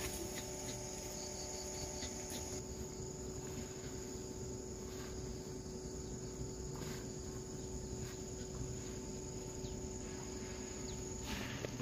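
Insects in the background, chirring as a steady high-pitched trill that is loudest for the first couple of seconds. A few faint, soft brief sounds come now and then over it.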